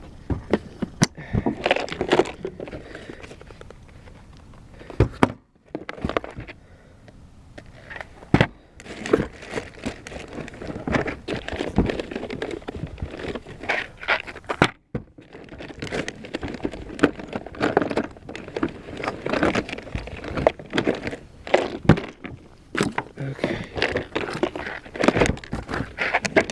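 Rummaging through ammunition and gear by hand: packaging rustling and crinkling, with frequent small clicks and knocks. There are brief pauses about five seconds in and again about fifteen seconds in.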